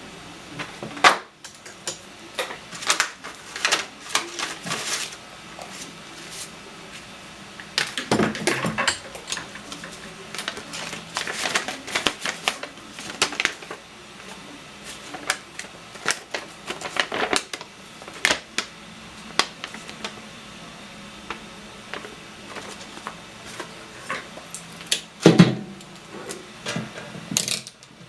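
Irregular clicks, taps and knocks of hands and tools working on a microwave oven's metal casing, with a louder thud near the end.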